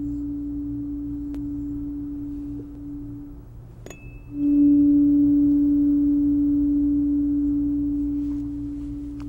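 Chakra tuning fork in D ringing a steady, pure tone that slowly fades and cuts off a little over three seconds in. About a second later it is struck again with a sharp tap and rings louder, then slowly fades once more.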